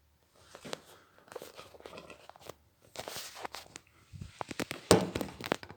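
Irregular rustling and crinkling with scattered clicks and knocks, the loudest a sharp knock about five seconds in.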